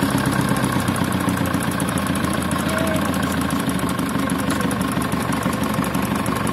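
Diesel engine of a Renfe 590 railcar running steadily as the railcar pulls slowly forward.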